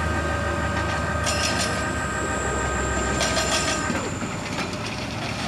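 Heavy construction machinery running steadily with a deep hum and a whine, and bursts of metallic clanking and rattling. The whine drops in pitch and fades about four seconds in.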